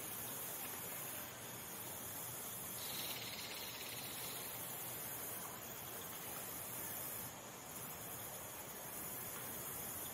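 Steady high-pitched outdoor insect chorus with a hiss-like quality, and a short buzzy insect trill of about a second and a half about three seconds in.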